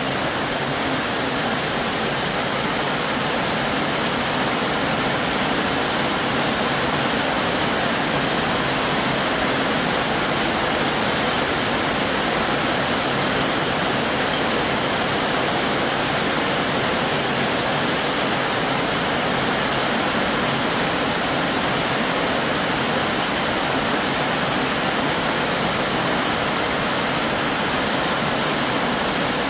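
Heavy rain pouring down steadily, heard from under a corrugated metal porch roof.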